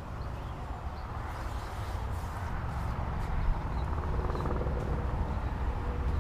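Wind buffeting the microphone: a steady low rumble that slowly grows louder, with a few faint ticks over it.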